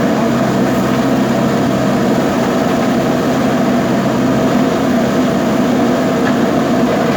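JCB backhoe loader's diesel engine running steadily, a constant drone with no change in speed.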